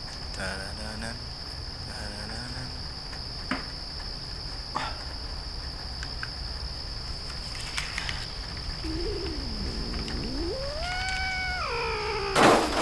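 Eerie horror sound design: a steady high-pitched ringing over a low hum. About nine seconds in, a drawn-out, distorted cat-like cry slides down and back up, then rises into a higher held meow-like call. A short loud burst of noise comes just before the end.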